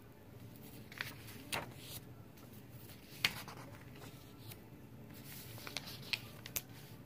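Stiff paper pages of a handmade junk journal, old ledger and book-page paper, being turned by hand: soft rustling with a few sharp crackles, the loudest about three seconds in and a small cluster near the end.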